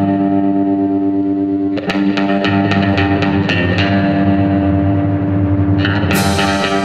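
Background music led by a guitar played through effects, over a bass line, with steady picked notes and a bright crash about six seconds in.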